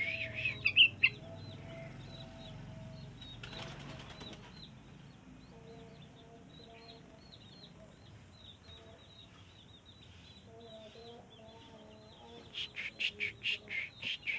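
Sooty-headed bulbul (burung trucuk) singing short runs of quick, bright chirping notes in the first second and again near the end, with a brief rustle of wing flapping about three and a half seconds in. Faint soft notes sound in between.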